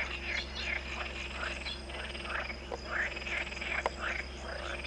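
A chorus of frogs croaking: many short calls overlapping, several a second, over a low steady hum. There is one sharp click near the end.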